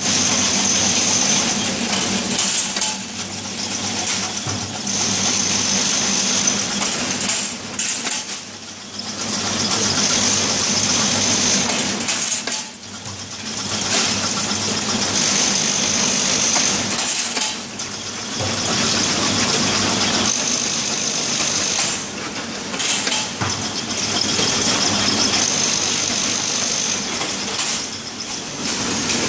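Stick bundling and labeling machine running: a steady motor hum under a dense clatter of the feed mechanism and sticks, in a working cycle that repeats about every five seconds.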